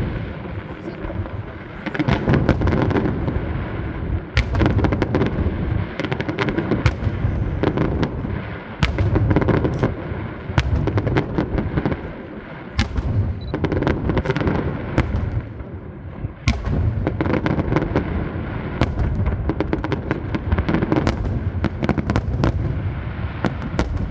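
Aerial fireworks display: rapid volleys of sharp cracks and crackling over a continuous booming rumble, coming in waves that ease off briefly every few seconds.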